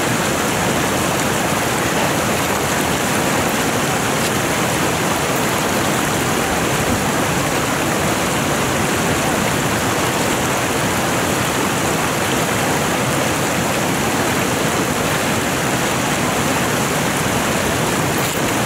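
Fast mountain stream rushing over rocks: a steady, loud rush of water.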